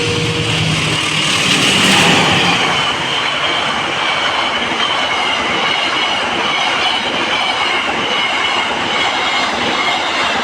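A train passing close by: steady rolling noise of wheels on rails, loudest about two seconds in. A thin high wheel squeal runs through it, slowly dropping in pitch.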